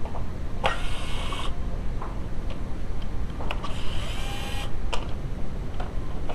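2.0 TDI diesel engine running with a steady low rumble while the worn fan clutch bearing squeals in short screeches of under a second, two about three seconds apart and a third starting at the end.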